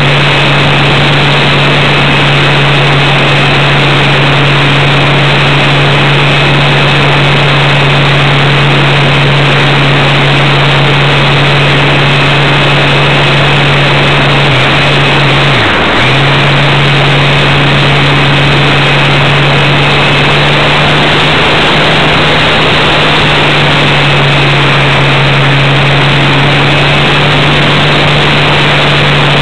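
Motor and propeller of a radio-controlled Super Cub model plane in flight, heard from on board: a loud, steady hum with a thin high whine over a dense hiss of rushing air. About halfway through the pitch dips briefly and comes straight back, as the throttle is eased and reopened.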